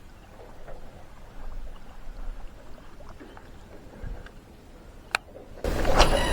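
Faint rustling and a sharp click, then a loud cat's meow that starts suddenly near the end.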